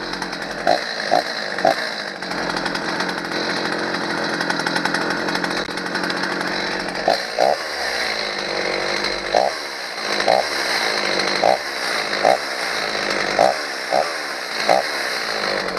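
Stihl 029 two-stroke chainsaw running steadily, with about a dozen brief revs scattered through, each dropping back to a lower speed.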